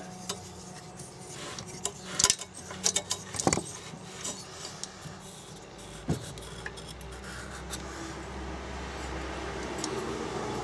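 Light metallic clicks, knocks and rubbing from hand work on a small Briggs & Stratton engine with its cylinder head off, as a finger rubs around inside the bare cylinder bore. The clicks cluster in the first few seconds, with a single knock about six seconds in.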